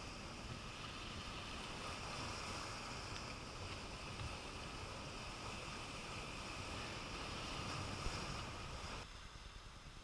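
Surf washing over a rocky shore with wind on the microphone, a steady rushing noise that drops abruptly about nine seconds in.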